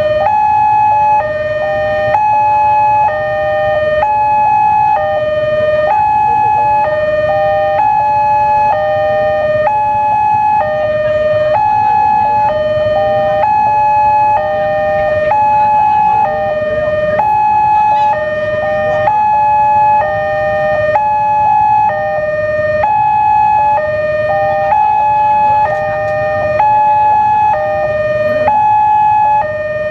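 Indonesian railway level-crossing warning alarm sounding its standard two-tone signal, a higher and a lower tone alternating steadily about once a second, warning that a train is approaching and the barriers are closed.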